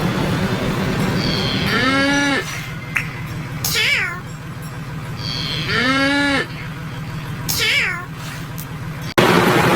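A cow's moo played through an audio effect that raises its pitch so it sounds like a cat's meow. The same call is heard twice, about four seconds apart, each rising then falling, over a steady hiss, and the sound cuts off abruptly near the end.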